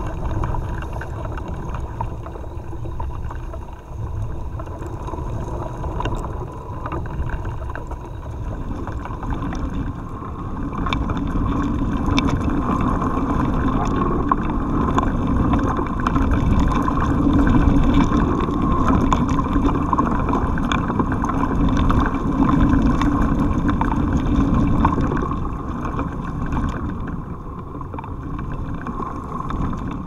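Tree branches and twigs picked up through a contact microphone wedged between them in the wind: many small ticks and rattles of twigs, over a low rumble of wind hitting the mic. It swells louder for about a dozen seconds in the middle, during a gust, with the creak of branches rubbing against each other.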